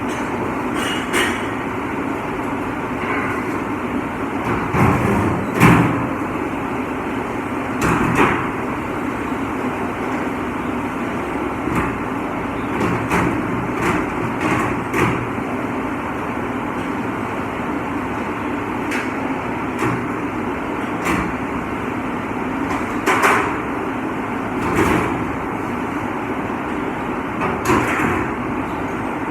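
Steady machine noise with scattered knocks and clatter, about a dozen short sharp hits spread through it, as of dishes and trays being handled around a running commercial dishwashing machine.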